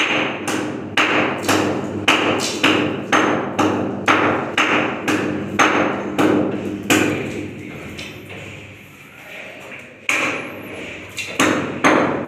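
Hammer strikes on a concrete ceiling, about two a second, then a pause of a few seconds and several more strikes near the end. The ceiling is being sounded for a buried electrical junction box, which gives itself away by a change in the sound of the strike.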